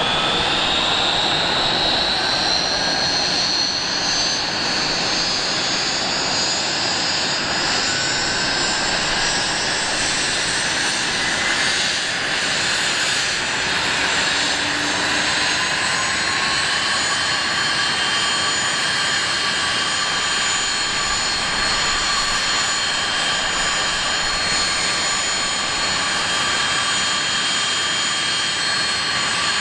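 Avro RJ85's Honeywell LF507 turbofans running on the ground with a high whine over a steady rush. The whine rises in pitch over the first few seconds and then holds steady, and a further lower tone rises and settles around the middle.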